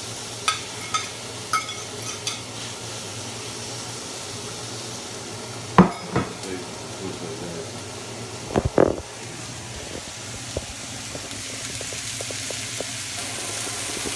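Chopped chicken breast and fajita peppers and onions sizzling in a frying pan, the sizzle growing louder near the end. A few light ringing clinks in the first couple of seconds, and sharp knocks against the pan about six seconds in and again around nine seconds.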